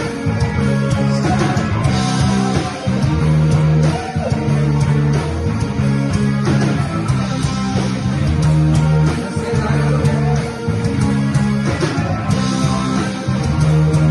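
Rock music with electric guitars and bass: a full band playing a steady rhythm, the bass changing notes every second or two.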